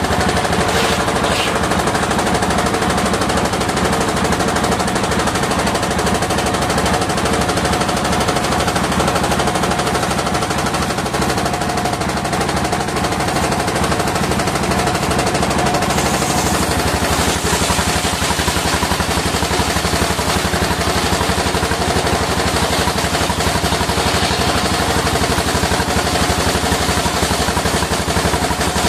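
Engine-driven circular sawmill running, its engine firing in a rapid, steady chatter under a steady hum from the saw.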